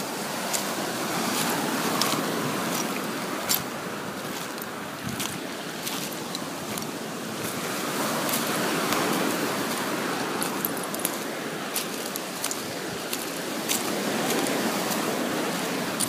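Surf washing up on a beach, swelling and easing back roughly every five to six seconds, with many small sharp clicks scattered through it.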